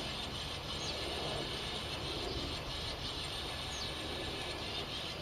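Two thin, high, falling call notes of a small songbird, about three seconds apart, over a steady low background rumble.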